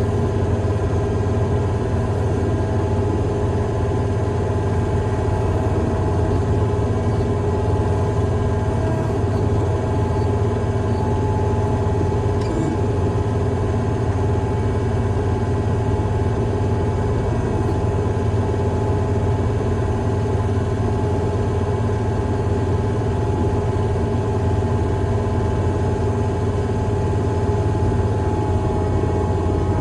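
Large diesel engine of a piece of heavy equipment running steadily at constant speed, a low, even drone with a steady whine above it.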